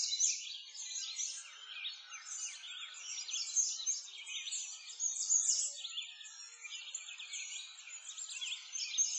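A dense chorus of many small birds chirping and twittering at once, a continuous run of short, high, quickly sweeping calls with no pause.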